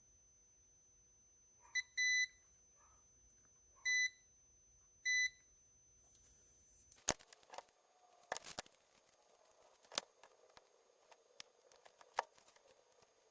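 Digital multimeter beeping on continuity, four short beeps in the first five seconds, as the repaired traces are checked with the probes. From about seven seconds on come scattered clicks and taps of the probes and board being handled.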